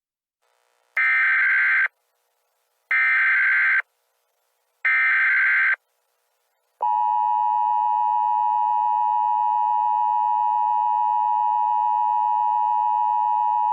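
Emergency Alert System header: three short bursts of screeching digital data tones, about two seconds apart. About seven seconds in, the steady two-tone EAS attention signal starts and holds, marking the start of a new emergency alert.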